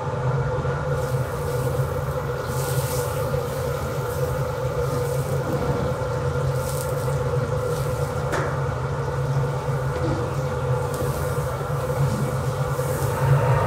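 Steady low rumble of the industrial wok's burner and kitchen machinery, under hot oil sizzling as dried shrimp are poured in and stirred. There is a single sharp metal knock about eight seconds in.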